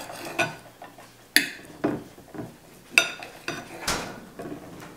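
Steel knife and fork cutting steak on a ceramic dinner plate: several sharp clinks of metal against the plate, three of them loud, with softer scrapes and taps between.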